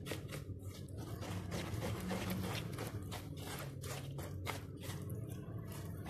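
A hand stirring flour into a wet egg-and-margarine mix in a bowl, working the flour in gradually to start a dough. Soft, irregular scraping strokes, a few a second, over a steady low hum.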